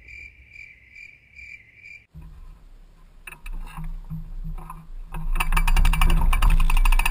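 A cricket chirping in a steady pulse, about two to three chirps a second. About two seconds in, it cuts to a mountain bike riding a dirt trail: low rumble, wind and rattle on the handlebar-mounted camera, growing loud with rapid ticking from about five seconds in.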